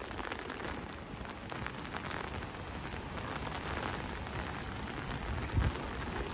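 Steady rain falling on wet stone paving, an even hiss of drops, with a brief low thump near the end.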